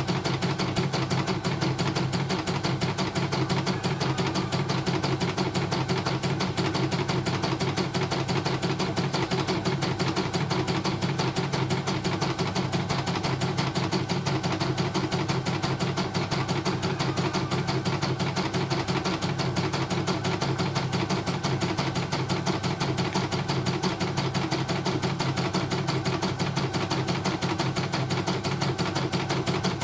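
CNY computerized embroidery machine stitching out a design at steady speed: a rapid, even clatter of needle strokes over the motor's hum. The machine runs smoothly on its test stitch-out after repair.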